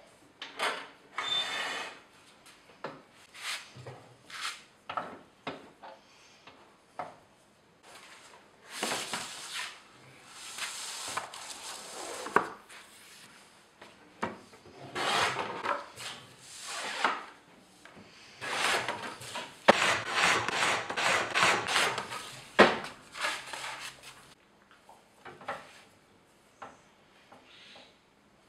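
Sheets of board sliding and scraping across the metal bed of a board shear in repeated bursts of a second or two, with a few sharp knocks; the loudest knock comes about two-thirds of the way through.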